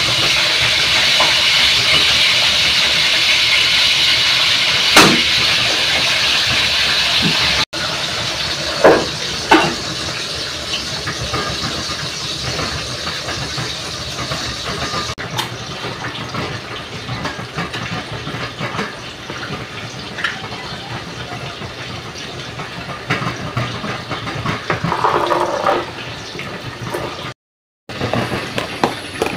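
Stovetop cooking on a gas stove: a steady hiss, loudest in the first several seconds, with sharp knocks of pot lids and utensils about 5 s in and twice around 9 s. After that the hiss continues more quietly among lighter kitchen clatter.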